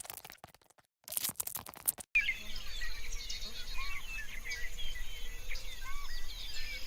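A scratchy crackling noise that cuts off abruptly about two seconds in, followed by a dense chorus of many birds chirping and whistling at once.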